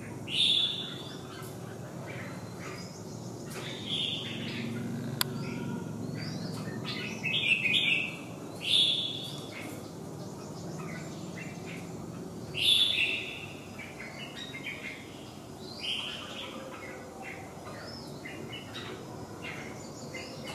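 Caged red-whiskered bulbuls calling during a display face-off: about six short, loud phrases a few seconds apart, with fainter chirps between them.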